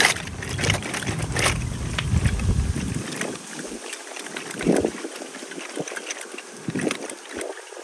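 Handling noise from a plastic basket of toy cars being carried: scattered clicks and rustles. A low rumble in the first three seconds stops abruptly, leaving only sparse clicks.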